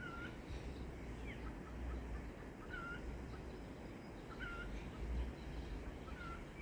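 A bird repeating a short, dipping call about once every one and a half seconds, over a faint low rumble.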